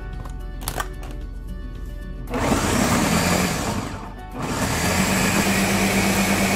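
Countertop blender motor running in two pulses, churning scoops of ice cream into a thick banana-coffee puree: a short run about two seconds in, a brief stop, then a longer steady run from about four and a half seconds on. Light background music plays before the blender starts.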